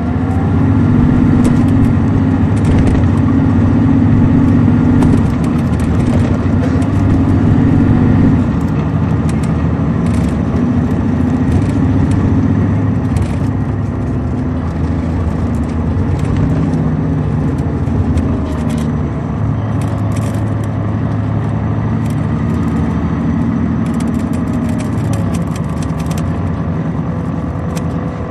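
Caterpillar C13 ACERT diesel engine of an MCI D4500CL coach running under way, heard from aboard the bus. Its note rises and falls several times as it pulls and eases off, with light rattles and clicks throughout.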